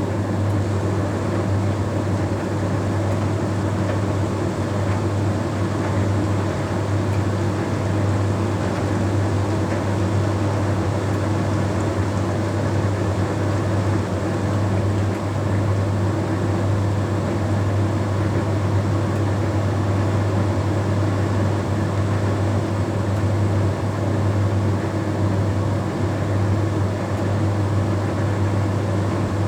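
Bosch Series 6 heat pump tumble dryer running its self-cleaning condenser phase, with a steady, loud hum under an even rushing noise as collected condensate is pumped through to rinse the condenser.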